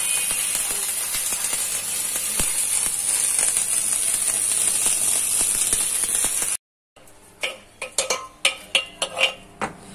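Steady high hiss, cut off suddenly about six and a half seconds in, then a quick run of sharp metallic clinks and clicks.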